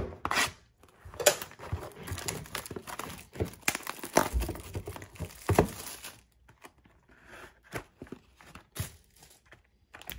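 Clear plastic shrink wrap being torn and crinkled off a trading-card box: a dense crackling for about six seconds. After that come scattered light taps and rustles as the cardboard box is opened.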